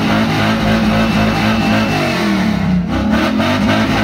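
A Ford pickup's engine revved hard and held high through its exhaust, with the revs dropping briefly about three seconds in before climbing again.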